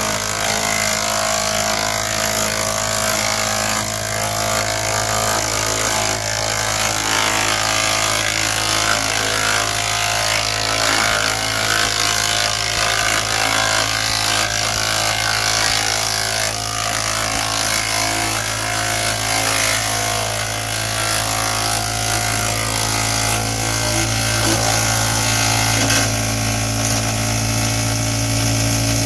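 Ohashi GS401D wood chipper running at steady speed: a steady low engine hum under a rough rushing noise. The low hum grows stronger near the end.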